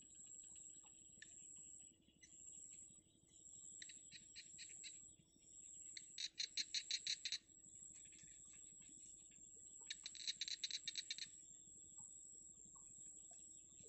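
Nestling birds in a grass nest giving rapid ticking chatter calls in three bursts. A softer burst comes first and two louder ones follow around the middle, over a steady faint high-pitched whine.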